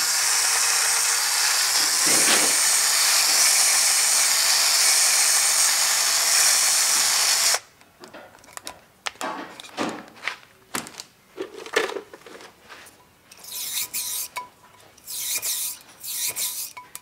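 Power drill spinning a diamond hone inside a valve guide of a Pontiac 455 cylinder head, a loud steady high whir that stops abruptly about seven and a half seconds in; the guide is being honed the last bit to size for valve-stem oil clearance. After it stops, quieter metal rubbing, scraping and light clicks as the hone and pilot rod are worked in and out of the guide.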